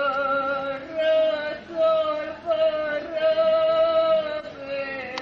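A single voice singing a slow, chant-like melody in held notes, each lasting from about half a second to over a second, with a slight waver in the pitch.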